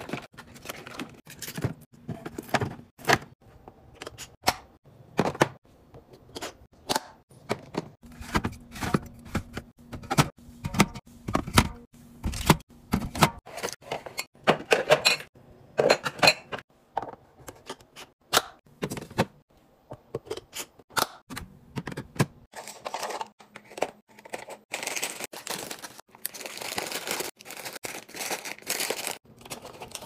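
Packaged snacks and bottles being set one by one into plastic fridge bins: a quick, uneven run of plastic clicks and knocks. In the last several seconds come denser crinkling and rustling as snack bags are packed into a bin.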